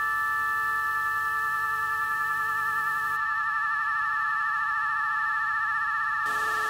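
Background music: a held chord of electronic, synthesizer-like tones with a slight waver, and a hiss coming in near the end.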